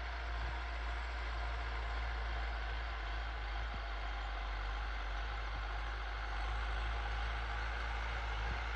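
Case JX100 MaxPro tractor's diesel engine running steadily while it pulls a field roller across tilled soil.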